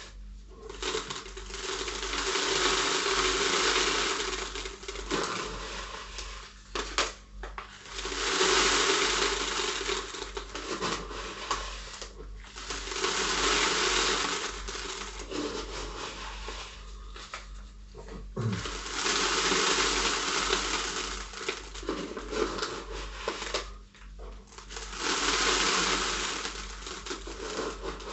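Seramis clay granules and Vulkatec lava-grit substrate poured from a small plastic cup into a 5-litre plastic bottle, a hissing rattle of grains. It comes in about five pours of a few seconds each, with quieter scooping of granules from a plastic bucket between them.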